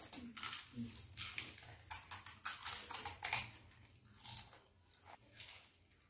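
Children chewing pani puri, the crisp fried puri shells crunching between their teeth in quick, irregular crackles. The crunches come thick at first and thin out near the end.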